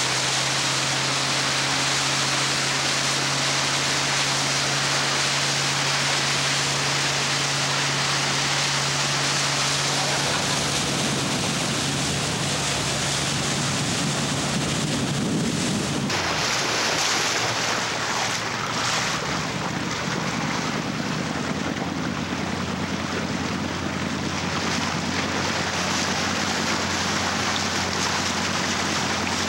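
Boat engines running at speed with rushing water and wind buffeting the microphone; the sound shifts abruptly about halfway through.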